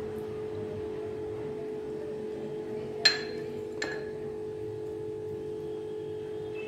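Two clinks about three-quarters of a second apart, the first the louder, as something hard knocks against a ceramic dish and rings briefly, over a steady low hum.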